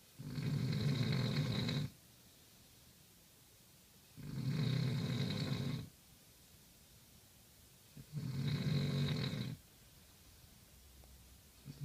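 Snoring: three drawn-out snores about four seconds apart, each lasting about a second and a half, with a fourth starting at the very end.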